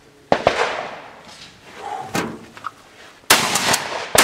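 Several shotgun shots fired at clay targets, each a sharp crack that dies away; the loudest comes about three seconds in.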